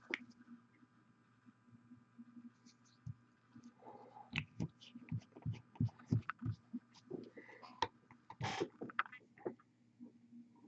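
Irregular taps, clicks and knocks from hands handling a miniature and painting supplies close to the microphone, thickest in the second half, over a steady low electrical hum.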